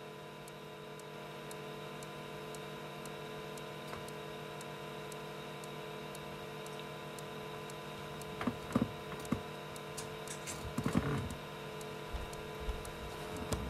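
Steady electrical mains hum with several droning tones and faint regular ticking in the recording. About halfway through come a few short knocks and clicks, like equipment being handled.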